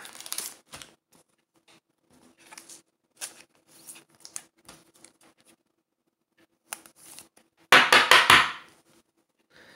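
Trading cards and their plastic sleeves being handled on a table: scattered light clicks and soft rustles, then about a second of loud rustling near the end.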